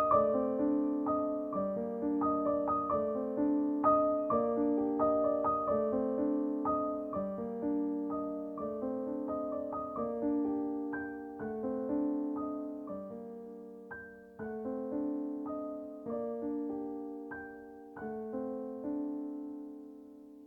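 Background piano music: a gentle piece of steady broken chords, about two notes a second, gradually getting quieter and fading out near the end.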